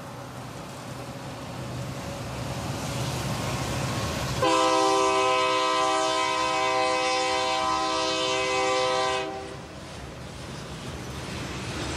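Freight train of Union Pacific and CSX diesel locomotives rumbling past, the rumble building over the first few seconds. About four seconds in, a multi-note locomotive air horn sounds one long chord lasting about five seconds and cuts off. After that, the freight cars roll by.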